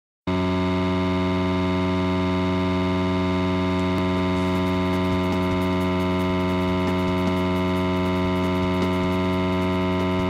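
Loud, steady electronic buzzing drone, a dense cluster of fixed pitches, that starts abruptly about a third of a second in and holds unchanged.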